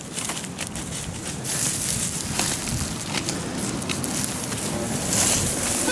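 Hand digger chopping and scraping through soil and dry grass roots in short crunches, with wind buffeting the microphone, stronger near the end.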